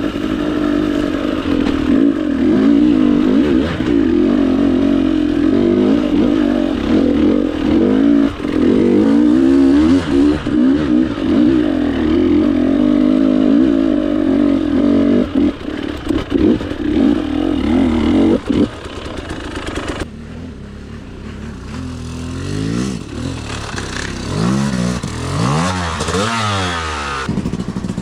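Yamaha YZ250 two-stroke dirt bike engine running under throttle on a trail ride, its pitch wavering as the throttle changes. About two-thirds of the way through it drops quieter, and the revs then swing up and down several times.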